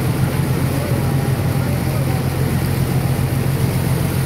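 Fishing boat's engine running with a steady low drone, with water rushing along the hull.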